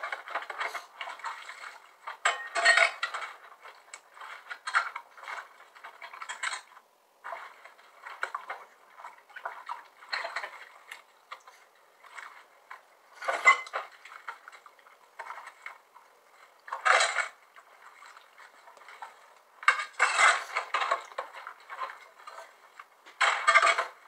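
Close-up eating and table noises: irregular crunches, clicks and taps with quiet gaps between, a handful of them louder than the rest.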